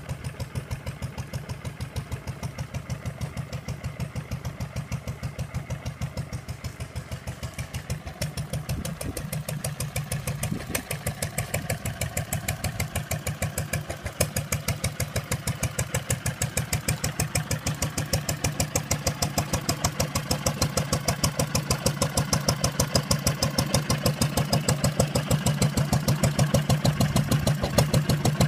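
Wolseley WD2 stationary engine running steadily with an even beat, belt-driving a small pump.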